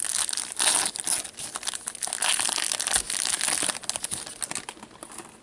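Upper Deck Tim Hortons hockey card pack being torn open, its wrapper crackling and crinkling as it is pulled apart, dying away near the end.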